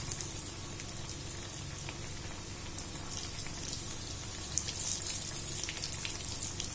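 Methi (fenugreek-leaf) dough pieces deep-frying in hot oil in an iron kadai: a steady crackling sizzle, the pieces just put in and still cooking through, stirred with a slotted steel spoon. The crackling gets denser about two-thirds through, with one brief light knock.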